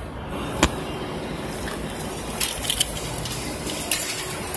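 Steady construction-site machinery rumble with a few sharp knocks, the loudest about half a second in and a small cluster near the middle.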